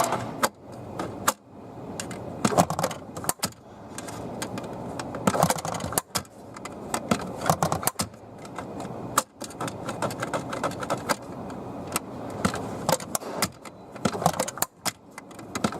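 Irregular clicking and rattling of hands working at a car's plastic glove box door and latch, with light knocks scattered throughout.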